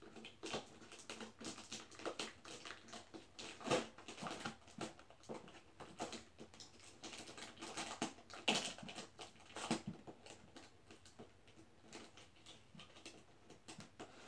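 Hands handling and picking at a taped cardboard box: irregular faint scratches, taps and crinkles of cardboard and packing tape, a few louder ones about four seconds in and around eight to ten seconds.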